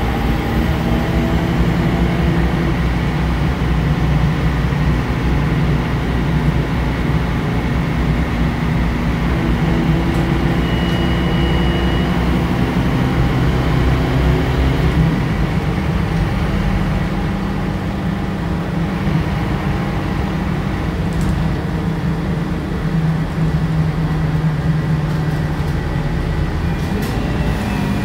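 Scania K94UB bus's rear-mounted Scania DC9 nine-litre five-cylinder diesel engine running under way, heard from inside the passenger cabin. The engine note changes about halfway through.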